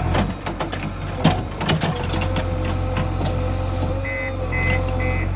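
Diesel engine of a JCB 3DX backhoe loader running steadily, with several metallic knocks early on and a steady whine. Near the end, a reversing alarm starts beeping about twice a second.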